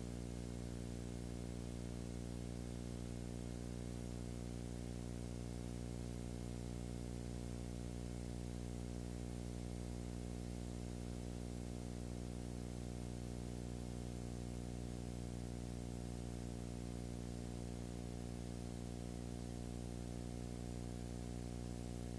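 Steady low hum with many overtones under an even hiss, unchanging throughout. It is the noise of the silent film's transfer, not a sound of the scene.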